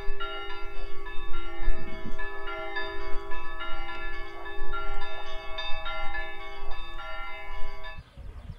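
Bell-like chiming melody over a steady held low tone, with a low rumble of wind beneath; the chimes cut off abruptly near the end.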